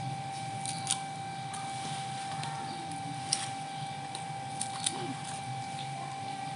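A few light, sharp clicks of a cooking utensil against a pan, over a steady hum and a thin constant whine.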